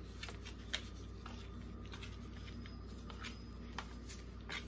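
Gloved hands turning raw chicken thighs over on a metal sheet pan: a few faint, scattered taps and ticks over a steady low hum.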